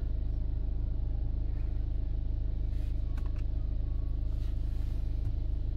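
BMW F10 engine idling, a steady low rumble, with a few faint clicks about three seconds in.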